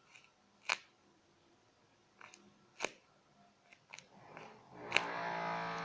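A few short, sharp crinkles of a paper squishy being handled. About five seconds in, a steady, even-pitched droning noise from outside begins.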